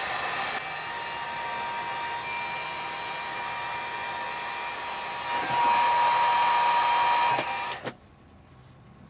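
Electric heat gun blowing steadily, a rush of air over a thin whine from its fan motor, as it heats a snowmobile handguard mirror's stem to soften it for bending. It gets louder about five and a half seconds in, then cuts off suddenly near the end.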